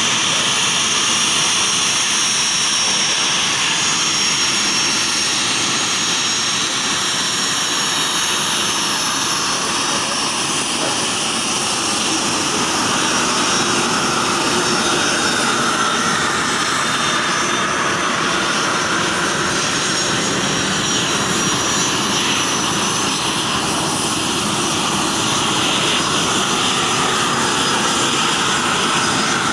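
Aircraft engines running steadily, a loud rush with a thin high-pitched whine held over it.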